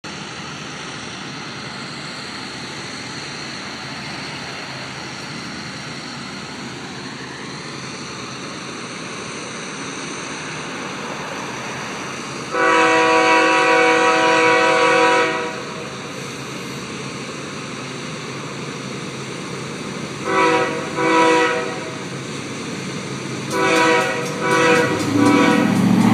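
Norfolk Southern freight locomotive's horn sounding one long blast of about three seconds, then a run of shorter blasts, over a steady hiss. Near the end the low rumble of the approaching diesel locomotives grows louder.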